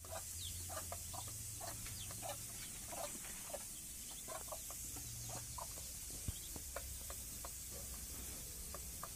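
Fowl calling softly: many short chirps and clucks, irregular and a few each second, over a faint steady low hum.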